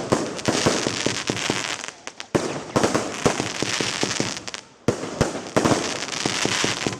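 Fireworks going off: several sharp bangs, each followed by a long, dense crackling.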